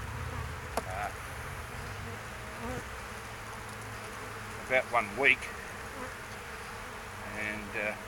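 A colony of feral honeybees humming steadily in an open Langstroth hive, with a single light knock about a second in.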